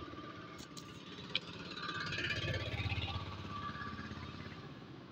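Road traffic going by: a steady hum, with one vehicle passing that swells about two seconds in and fades away towards the end. A couple of light clicks come in the first second and a half.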